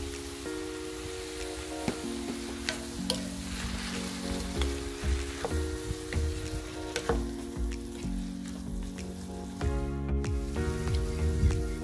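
Sliced onions, bell peppers and carrots sizzling in oil in a stainless steel pan while a wooden spatula stirs them, with scattered clicks and scrapes of the spatula against the pan. Background music plays throughout, its chords changing about every second.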